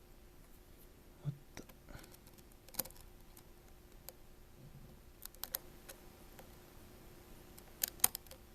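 Faint, scattered small clicks and taps of a small metal repair tool against a phone's tiny screw and internal parts, a few coming in quick pairs near the middle and end.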